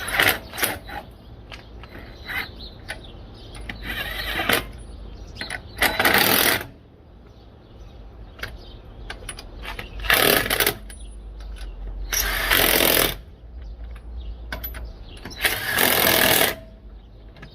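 Power tool run in about six short bursts of up to a second each, tightening suspension bolts, with small clicks and knocks of tools in between.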